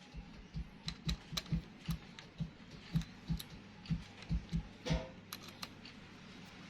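An irregular series of light knocks and clicks, about two to three a second, each a dull thump with a sharp click on top, stopping about five and a half seconds in.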